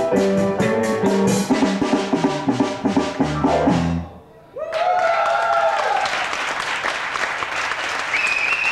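A live band of keyboard, drum kit and electric bass guitar finishes a song about four seconds in, closing on a falling bass run. Applause and cheering from the audience follow at once.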